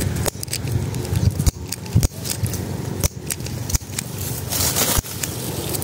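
Sharp snips and snaps about once a second, with a brief rustle of leaves past the middle: twigs and foliage being cut by hand.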